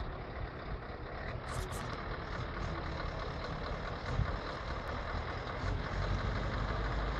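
Scania 4-series truck's diesel engine running steadily as the truck and its drawbar trailer move slowly, growing a little louder near the end.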